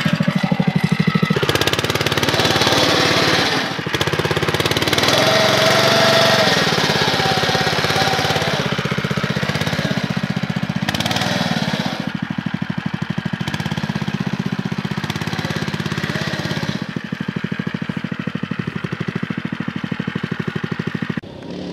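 Small single-cylinder engine of a Scout-7 Bosun rear-wheel-drive minibike running under load as the bike churns through deep mud, revving up and down. After about twelve seconds it settles to a lower, steadier run.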